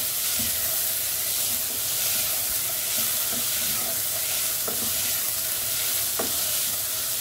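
Chopped fenugreek leaves, onion and coconut sizzling in hot oil in a pot while a spatula stirs them, with a few light knocks of the spatula against the pot.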